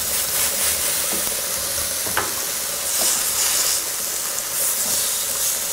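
Steady frying sizzle from shredded pointed cabbage sautéing in oil in a frying pan and hake burgers cooking on a ridged grill pan, with a couple of light utensil knocks.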